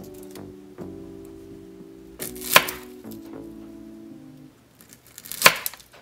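Two sharp cuts of a miniature knife on a small wooden cutting board, about three seconds apart, the loudest sounds here. Background music with held notes runs under them and stops about halfway between the two cuts.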